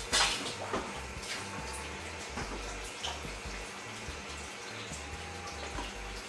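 Red cabbage steaming and sizzling in a covered pan under a glass lid: a steady hiss with scattered crackles and pops.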